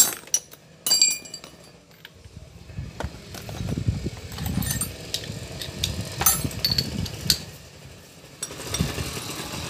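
Metal hand tools clinking and clattering as they are picked up and handled, with sharp clinks at the start and about a second in. An uneven low rumble runs through the middle.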